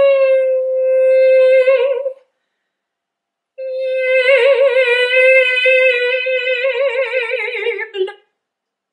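Mezzo-soprano singing wordlessly: a held note that falls silent after about two seconds, then after a short pause a longer phrase on the same pitch with wide vibrato.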